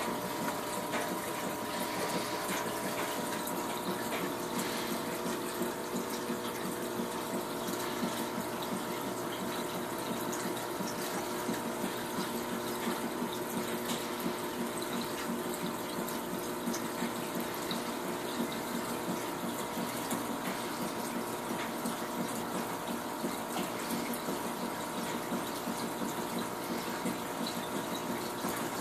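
Aquarium filter running: a steady rush of moving water with a constant motor hum underneath.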